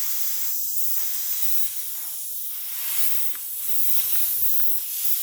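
Steady hiss of air escaping from the reamed puncture hole in an inflated tire, with a few faint ticks.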